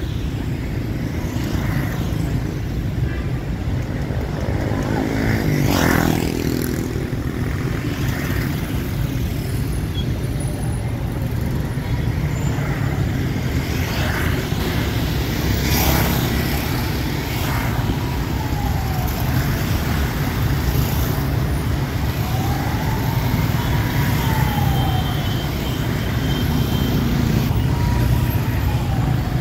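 Busy city street traffic: the engines and tyres of passing vehicles make a steady rumble, broken by a couple of brief louder sounds and a few faint rising-and-falling tones.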